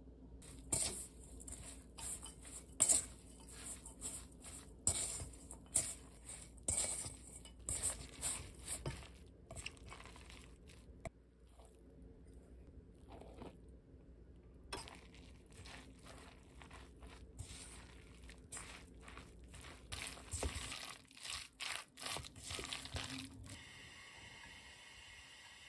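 Shredded aged pumpkin being tossed and mixed in a stainless steel bowl: irregular rustling and squishing with light clicks against the metal, in two spells with a quieter stretch between. A faint steady hiss starts near the end.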